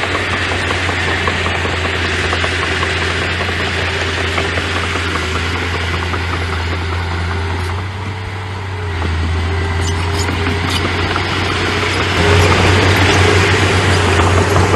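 Engine of a small tracked construction machine running steadily, dipping briefly about eight seconds in and then growing louder about twelve seconds in.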